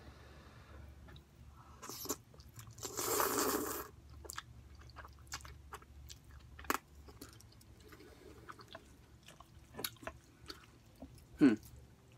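Close mouth sounds of eating hot spicy instant noodles: one loud breathy burst about three seconds in, then quiet chewing with scattered small clicks, and a brief falling hum near the end.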